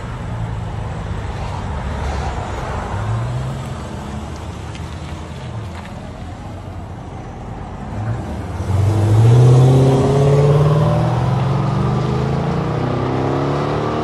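A 2013 Chrysler 300S's 5.7-litre Hemi V8, running through a rear muffler delete with the middle resonators kept, moves off at low revs. About eight seconds in it revs up hard as it accelerates past, rising again in pitch near the end.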